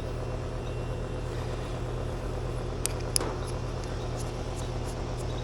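Central air-conditioning condenser unit running after a TXV replacement, its compressor and fan giving a steady hum. Two short light clicks about three seconds in.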